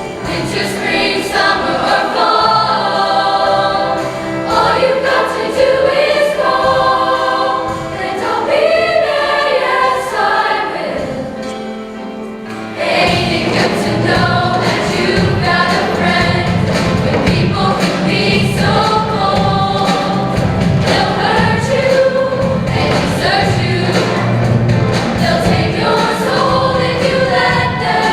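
Show choir singing with musical accompaniment. About twelve seconds in the music thins and dips, then comes back fuller with a steady low pulse under the voices.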